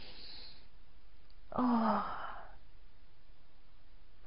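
A woman's audible sigh on the out-breath, voiced with a slightly falling pitch and lasting under a second, about a second and a half in, as she relaxes into a deep yoga side stretch; a soft breath comes just before it.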